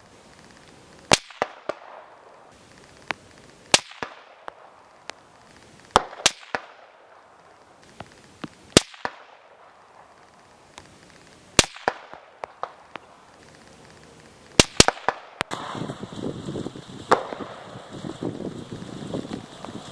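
Rifle shots on a shooting range: a sharp crack every two to three seconds, with fainter shots from other positions in between and a quick pair about three quarters of the way in. Near the end a steady rushing background noise rises under the shots.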